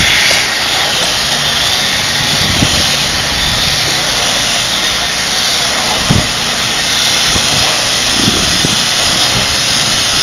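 Homemade spin screed running: a stainless steel tube spun by a corded electric drill, with the motor running steadily as it works over wet concrete. A sharp knock comes about six seconds in.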